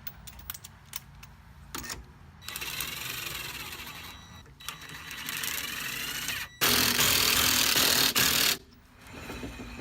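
Power tool running lug nuts onto a wheel in three bursts, each a couple of seconds long, the last the loudest.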